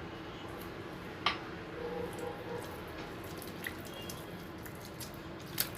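Water dripping and lightly splashing in a few separate drops over a low steady room hum, with two sharper drops about a second in and near the end.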